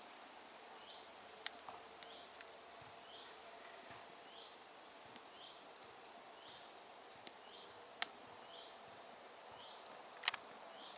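Wood and pine cones burning in a metal mangal grill, crackling with scattered sharp pops. The loudest pops come near the start, past the middle and near the end. A short high chirp repeats steadily in the background, about every two-thirds of a second.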